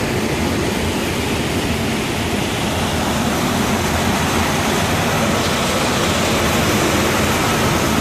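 Cooling tower running: a steady, even rushing noise of the belt-driven fan and the water falling through the tower. The drive runs on a newly replaced motor pulley, and it runs smoothly.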